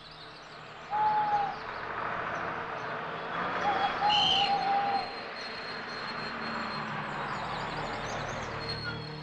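A bus coming along a country road, its engine and tyres a steady rush, with a bird's short clear whistled calls about a second in and again around four seconds in.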